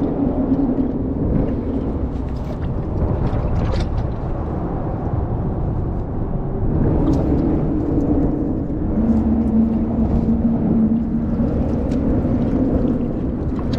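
A steady motor drone with a low hum that drops slightly in pitch about nine seconds in, with short rustles of clothing rubbing against the microphone.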